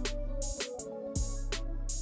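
Background music with a steady drum beat over held notes and a bass line.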